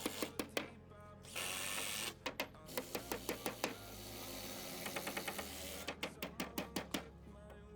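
Quick irregular series of sharp knocks and clicks, with a short burst of hiss about a second and a half in and a longer, softer hiss through the middle, over a steady low hum.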